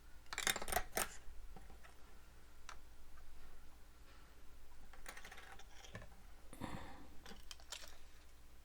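Handling noise: bursts of short clicks and rustles, the loudest about a second in and more around five to eight seconds in, typical of a small device and its packaging being handled.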